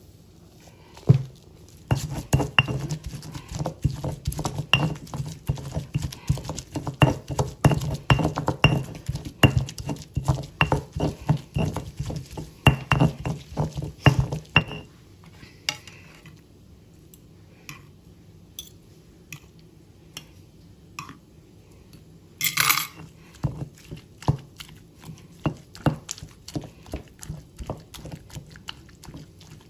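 Stone pestle pounding and grinding serrano chiles, garlic and salt in a volcanic-stone molcajete: rapid stone-on-stone knocking and scraping, sparser after about halfway. A louder scrape comes near the two-thirds mark, and the strikes pick up again near the end as the pestle mashes soft roasted tomatoes.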